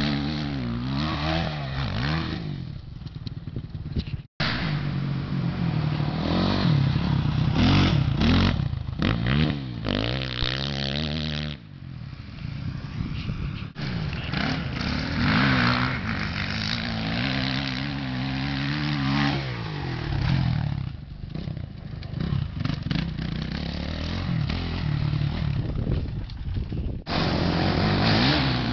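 Motocross dirt bike engines revving as the bikes ride the track, the pitch rising and falling again and again with throttle and gear changes. The sound drops out briefly about four seconds in.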